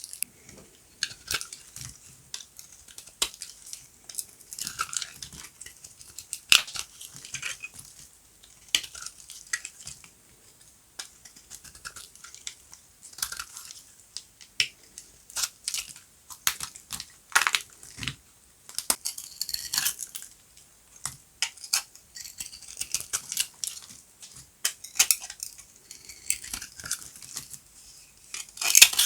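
Dry, crunchy bar soap being cut and crunched: irregular crisp snaps and crackles, some in quick runs, with brief pauses between cuts.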